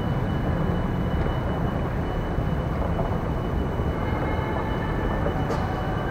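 Steady low rumble of an airport terminal concourse's background noise, heard on a handheld camera, with a faint steady high tone.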